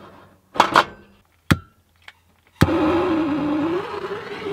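Handheld propane torch: a clunk and a click of handling, then about two and a half seconds in it lights suddenly and burns with a steady hiss and a wavering hum.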